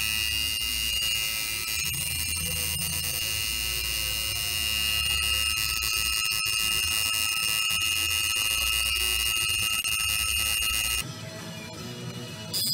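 Electric tattoo machine buzzing steadily as it works, a high whine over a low hum. It drops away about eleven seconds in.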